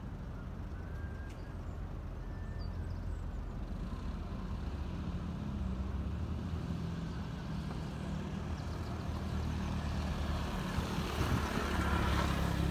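Distant city traffic from the streets below: a steady low rumble of vehicles that swells toward the end.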